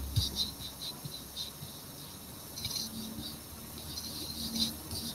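Faint insect chirping in short, high, irregular pulses that come in clusters, with a few soft low thumps.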